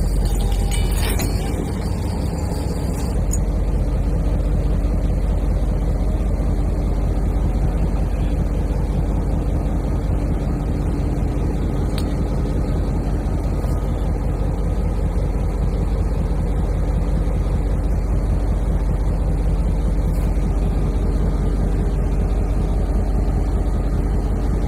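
Stationary train locomotive running steadily, a continuous low engine hum.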